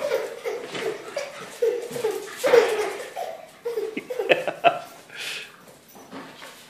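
Laughter in short, high-pitched bursts, about two a second, with a few sharp taps about four seconds in.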